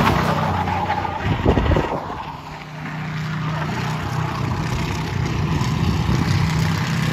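Car engine running hard on track laps, loud at first, then dropping away about two seconds in before settling into a steady drone. The engine has off-road red diesel in place of its oil and is still running without trouble.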